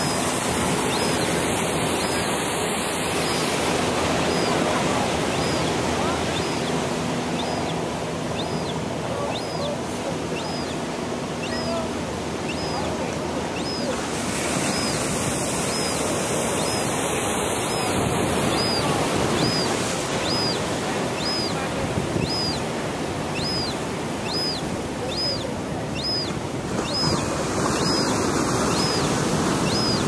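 A western gull chick begging for food with thin, high peeps, repeated about once a second, with a short pause midway. Steady surf and wind run underneath.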